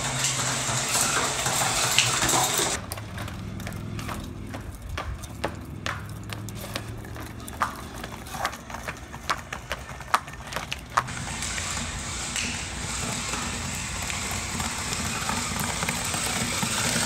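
A small wheeled mobile robot's electric drive motors running, with a low steady hum at the start, then a stretch of scattered clicks and taps, then a steady whir near the end.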